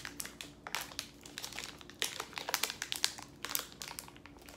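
Plastic wrapper of a white Snickers bar crinkling as it is peeled open and handled, a quick irregular run of crackles that is densest in the middle.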